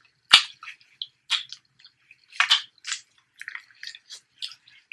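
A person eating close to the microphone: wet chewing and mouth smacks with short crackles and clicks, and one sharp snap about a third of a second in.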